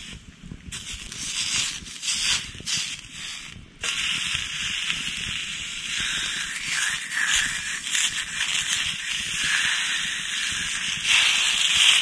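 Raw bacon sizzling on a hot griddle plate over a wood campfire, the sizzle coming in short broken spurts at first, then running steadily from about four seconds in as more strips go down on the plate.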